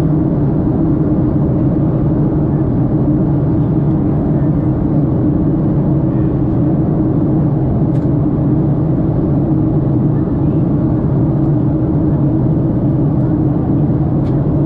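Steady low drone of a jet airliner in flight, heard inside the cabin beside the wing-mounted turbofan engine: engine and airflow noise, even throughout, with a couple of faint ticks.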